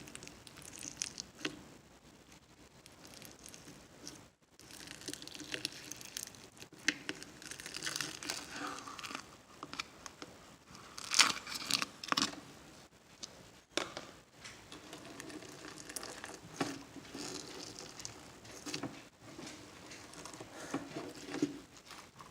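Slushee slime being squished and stretched by hand, giving irregular crackling, sticky clicks and small pops. The loudest crackles come about halfway through.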